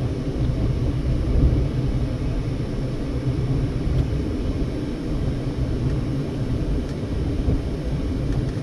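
Steady low rumble of a car driving on a road: engine and tyre noise heard from inside the moving vehicle.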